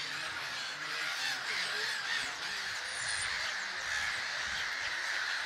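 A large colony of grey-headed gulls calling all at once: a dense, steady chorus of many overlapping cries with no break.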